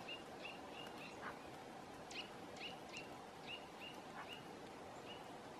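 Woodpecker giving a run of short, sharp call notes, about two a second, with a brief pause partway through.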